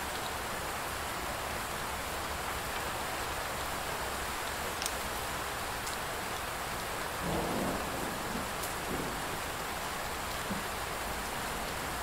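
Steady rain falling. A short low rumble of thunder swells up about seven seconds in, with a few fainter rumbles after it, and a few single drops tick now and then.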